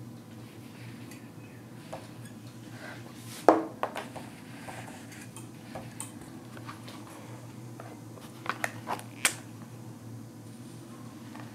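A whiteboard duster rubbing across a whiteboard, with sharp clicks and knocks: one loud knock about three and a half seconds in and a quick run of three or four clicks near the end.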